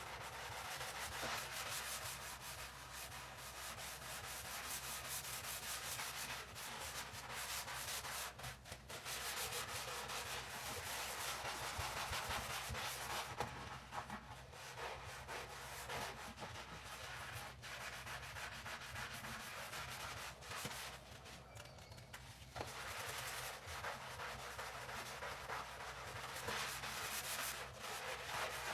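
Kitchen sink being scrubbed: continuous rough rubbing strokes, broken by short pauses a few times.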